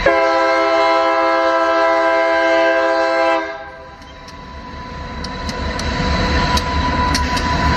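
Diesel locomotive air horn sounding one long blast of about three and a half seconds as the train nears a road grade crossing, then cutting off. After it, the rumble of the approaching locomotive and its wheels grows louder, with scattered clicks.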